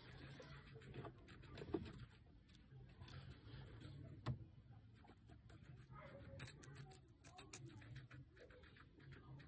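A guinea pig biting and chewing a raw red bell pepper: faint crisp crunching clicks in irregular runs, busiest about six to seven seconds in.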